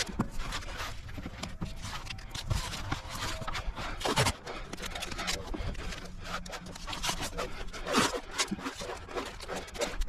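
Irregular scraping and rubbing, with short clicks and knocks scattered throughout and a louder stroke about four seconds in and another about eight seconds in.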